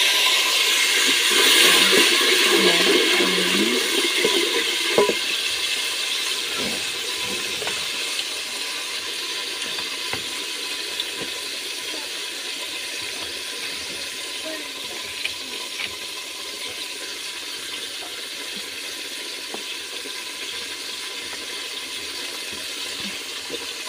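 Water hitting onions browned in oil in a hot saucepan, sizzling and hissing loudly at first, then fading steadily as the pan cools to a gentler bubbling.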